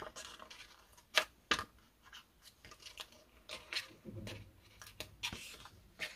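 Pointed metal tweezers clicking and a plastic-coated sticker sheet crinkling as small die-cut stickers are peeled off their backing: a scattering of sharp clicks, the loudest two about a second and a second and a half in, with brief rustles of the sheet later on.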